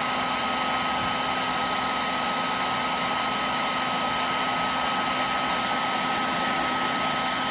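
Heat gun blowing steadily on its high setting: an even airy hiss with a thin steady whine, unchanging throughout.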